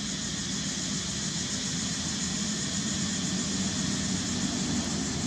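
Steady outdoor background noise: a constant low hum under an even high hiss, with no monkey calls.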